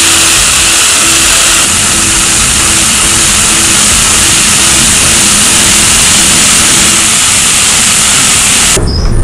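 Angle grinder running with an abrasive disc pressed against a steel bread-cutter blade, giving a steady, loud grinding noise as the rust is taken off. It cuts off abruptly near the end.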